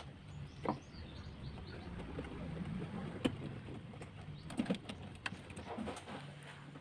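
Faint, scattered clicks and light knocks of hands and tools working at a fuel hose and its hose clamp on a diesel engine's fuel filter, over a low steady background hum.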